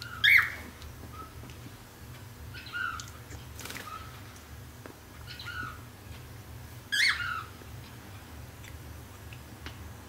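Pet cockatiel calling: two short, loud calls, one at the start and one about seven seconds in, with two softer, shorter calls between them.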